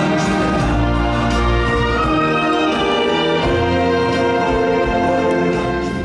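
Orchestral show music with brass, loud and full, fading down near the end.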